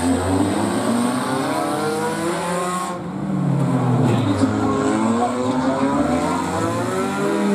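Engines of several figure-8 race cars revving, their overlapping pitches rising and falling as the cars speed up and slow down around the track.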